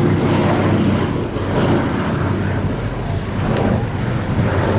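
B-17 Flying Fortress flying past, its four Wright Cyclone radial piston engines droning steadily and loudly.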